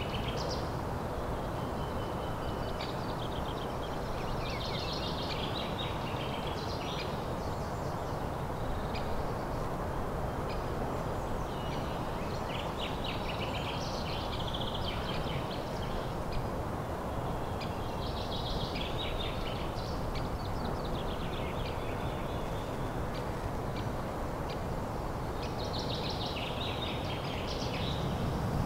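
Songbirds singing short, repeated phrases every few seconds over a steady low rushing background.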